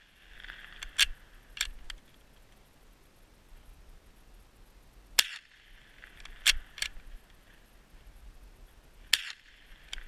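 Cooey Model 60 bolt-action .22 LR rifle firing two sharp, light cracks about four seconds apart. After each shot come two quicker, quieter mechanical clicks as the bolt is worked to eject the case and chamber the next round from the tube magazine.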